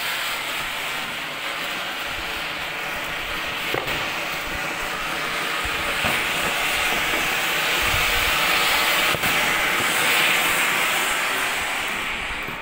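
Anar (ground fountain firework) spewing sparks with a loud, steady rushing hiss and a few small crackles, growing a little louder before easing near the end.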